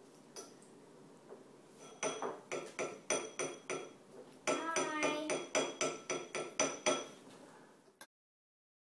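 Spoons tapping and clinking against dishes: a quick run of sharp, ringing strikes, about three a second, that stops suddenly near the end.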